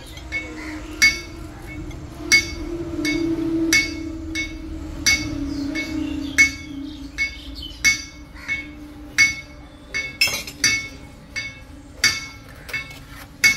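A hammer repeatedly striking steel, each blow ringing with a bright metallic tone, at about one blow every second and a half and then faster and less regular in the second half.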